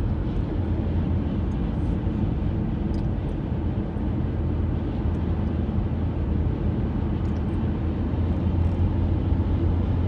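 Steady road and engine rumble inside the cabin of a car driving along a highway.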